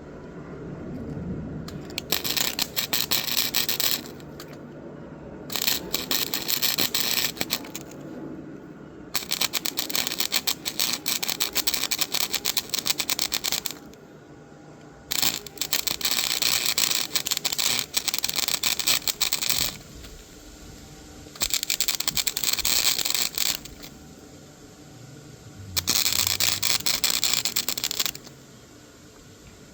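Hand-tool work on a mini bike: six bursts of rapid scraping clicks, each two to four seconds long, with short pauses between.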